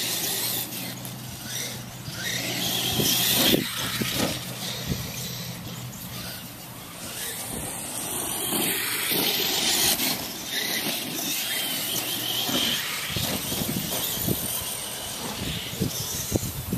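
Radio-controlled Tamiya Clod Buster monster trucks running across grass, their twin electric motors and gearboxes whining steadily. Short knocks come through now and then, several of them near the end.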